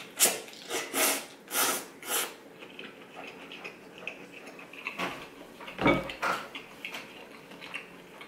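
Ramen noodles slurped in about five quick sucks, then chewing with small wet clicks. A louder, deeper dull sound comes about six seconds in.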